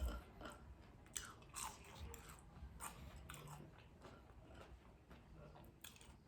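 A person chewing and biting a mouthful of food close to the microphone: irregular soft crunches and wet mouth clicks, with a low thump right at the start.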